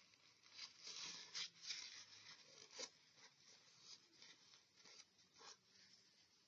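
A series of short, faint scratchy strokes: a paper towel rubbing and wiping the rim of a glass jar.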